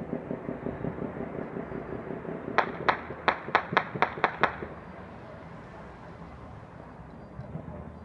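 Distant New Year's Eve gunfire and fireworks: a fast, even string of dull pops, about six a second, that stops after about four and a half seconds. Over it, from about two and a half seconds in, come eight sharp, louder cracks in quick succession, about four a second.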